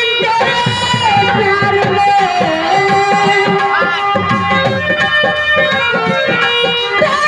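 Live Indian stage-band music: fast hand-drum playing under a lead melody of long held notes that slide between pitches.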